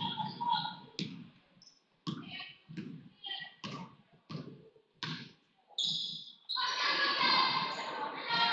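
Basketball dribbled on a hardwood gym floor: a string of echoing bounces, uneven, roughly two a second. About two-thirds through, a loud wash of crowd noise comes in over it.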